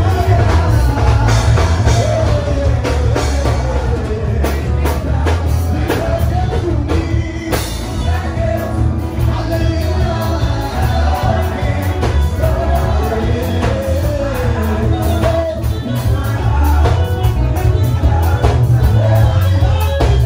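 Worship song with a band: a lead voice sings a winding melody over a drum kit and heavy bass.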